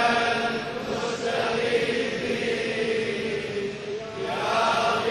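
Male reciter chanting an Arabic supplication in long, drawn-out held notes, quieter through the middle. About four seconds in, the voice slides up into a new held note.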